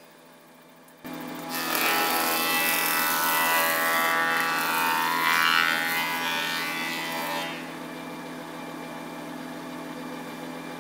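Surface planer (jointer) cutting the edge of a board fed along its fence: after a near-silent first second, a loud steady cutting noise from about a second and a half in until about seven and a half seconds, then the machine running on more quietly with no wood on the cutter block.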